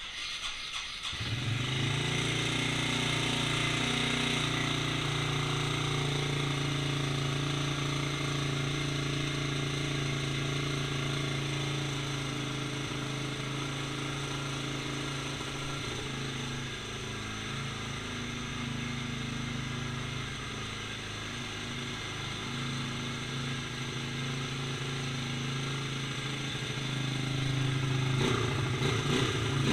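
Yamaha 225 four-wheeler's single-cylinder four-stroke engine cranked on its electric starter, catching about a second in, then running steadily at idle and revving up a little near the end. The owner says its worn rings make it smoke and burn oil.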